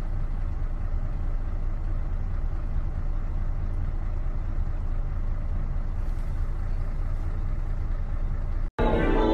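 Vehicle engine idling, a steady low rumble. Near the end it cuts off abruptly and plucked-string music begins.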